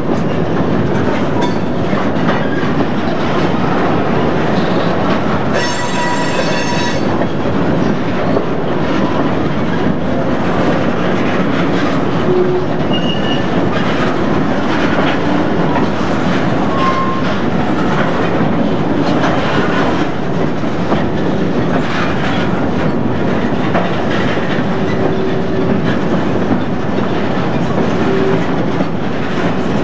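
Empty covered cement hopper cars of a freight train rolling past on the track, with steady wheel-on-rail noise. A short high squeal comes about six seconds in, with a few fainter squeals later, heard through a VHS camcorder's microphone.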